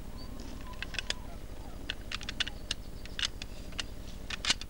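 A series of irregular, light clicks and taps, the sharpest one near the end, over a steady low hum.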